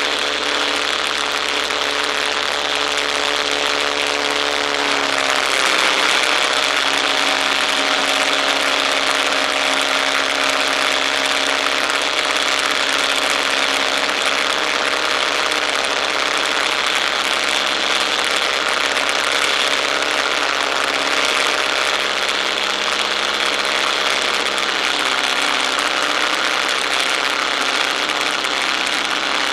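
Boeing-Stearman Model 75 biplane's radial engine droning steadily in flight, under a heavy rush of airflow over the wing-mounted microphone. The engine's pitch dips and settles about five seconds in.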